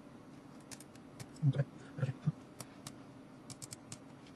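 Faint small clicks and taps of metal tweezers and fingertips on a compact digital camera's circuit board and internal parts during reassembly, with a quick run of about four clicks near the end. A few soft low thuds from handling fall in the middle.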